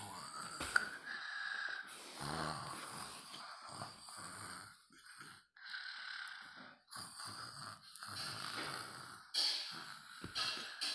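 Snoring: one drawn-out breath after another, each a second or two long, with short pauses between them.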